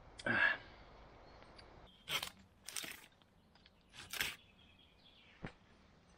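A glass bottle set down on a stone slab with a short knock, then four separate rasping strokes of a small hand saw cutting into a wooden rail.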